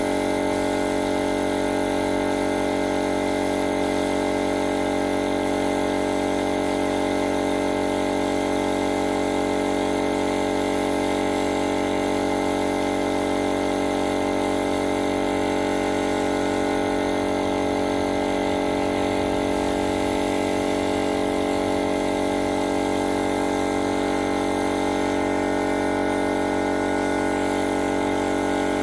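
A machine running steadily, with an even hum made of several fixed tones and a layer of hiss over it.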